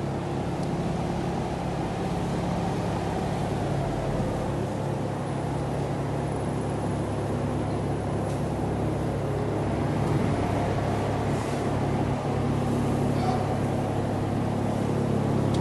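Steady low mechanical drone with several held low tones, the hum of a machine running.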